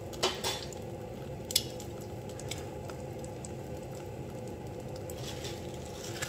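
Egg frying in a pan: steady bubbling and sizzling with light crackle, and two short sharp pops or clicks, one just after the start and one about a second and a half in.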